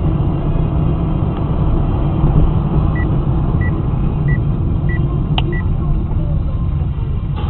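Steady engine and road rumble inside a moving car. In the middle come five short, high beeps about two-thirds of a second apart, with a single click between the fourth and fifth.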